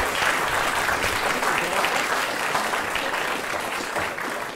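Audience applauding, many hands clapping at once, steady and then easing off near the end.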